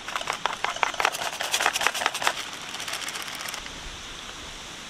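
Quick run of light clicks and scrapes from a utensil working against a bowl of batter ingredients as cake flour is added, stopping after about two seconds and leaving only quiet background.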